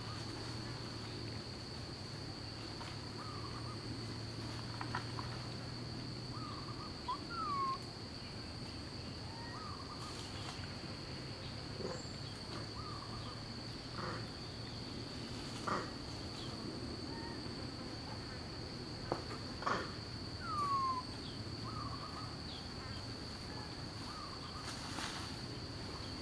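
Steady high-pitched insect drone, with short chirping calls repeating every second or two and a few sharp clicks.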